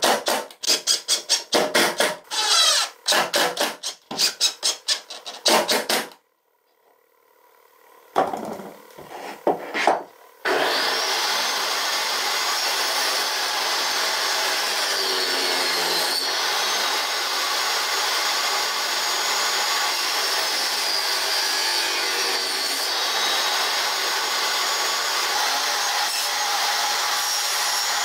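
A quick run of back-and-forth rasping strokes on wood comes first. After a short quiet gap, a table saw starts about ten seconds in and runs steadily, its tone dipping a little a couple of times as the blade cuts pine.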